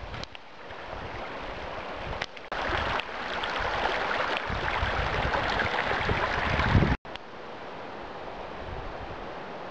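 Steady rushing of a mountain stream, with wind buffeting the microphone in low rumbles. The sound breaks off sharply twice, about two and a half seconds in and again about seven seconds in, then carries on at a lower level.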